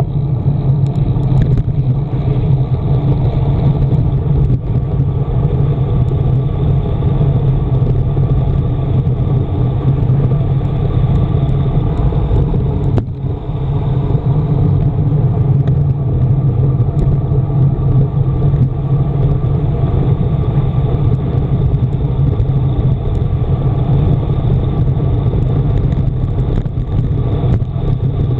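Wind and road noise on the handlebar-mounted camera of a road bike descending at speed: a loud, steady rumble that eases briefly about 13 seconds in.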